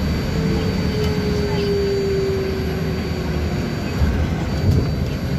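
Inside a moving trolleybus: steady rumble of the wheels and road, with the electric motor's whine falling slightly in pitch for about three seconds and then fading, and a thin high steady whine above it.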